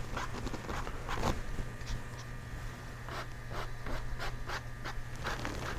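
Bristle paintbrush stroking and flicking oil paint onto a canvas: a series of short, irregular brushing scratches.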